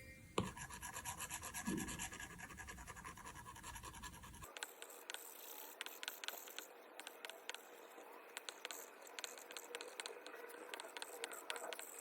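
Faint scratching and rubbing strokes with quick light taps of a stylus drawing on a tablet screen.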